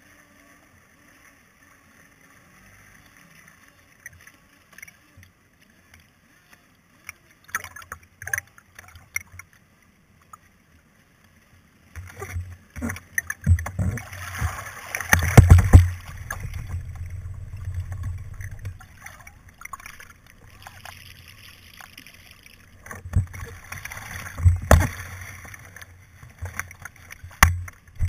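Handling noise on a radio-controlled race boat's hull, its engine silent. At first only a few faint clicks and water sounds, then from about halfway a run of loud knocks, bumps and splashing as the boat is grabbed by hand and lifted from the water.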